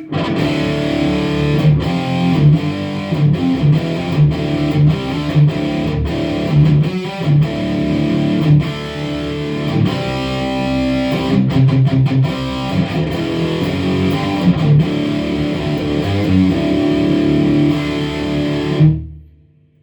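Electric guitar played through an Engl Fireball tube amp's ultra gain channel with its EQ set flat: high-gain, distorted chord riffing with many sharp picked attacks. The playing stops abruptly shortly before the end.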